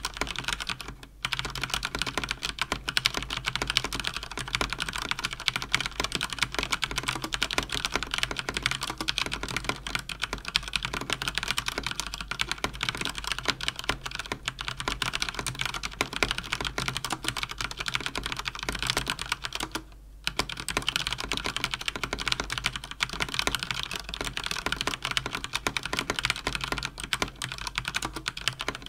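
Fast typing on a Cougar Attack X3 RGB mechanical keyboard with Cherry MX Speed linear switches: a dense, steady stream of key clacks. There are brief pauses about a second in and again about two-thirds of the way through.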